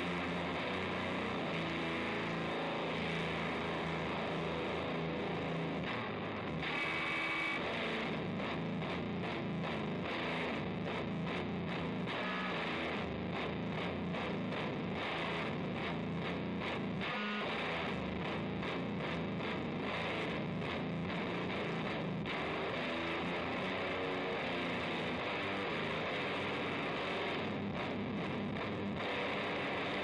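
Electric guitar through a Haggtronix Grassman Fuzz pedal into a Fender Hot Rod Deluxe amp's dirty channel: a thick, heavily fuzzed tone played without a break at a steady level. The tone shifts as the pedal's knobs are turned.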